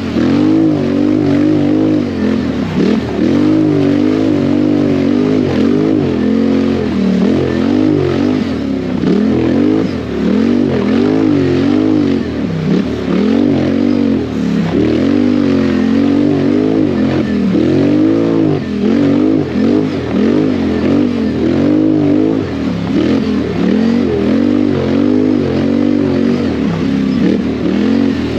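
ATV engine under hard riding, its revs rising and falling about once a second as the throttle is worked and released.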